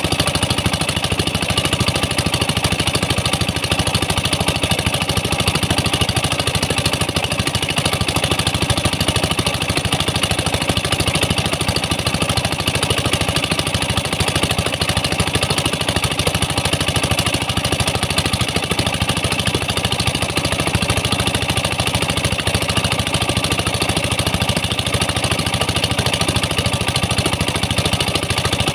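Pump engine running steadily at a constant speed, driving the high-pressure water jets and slurry hoses.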